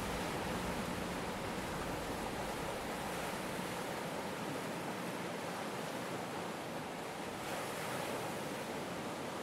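Steady rushing noise, with a faint low hum that fades out in the first few seconds; the deepest rumble drops away about halfway through.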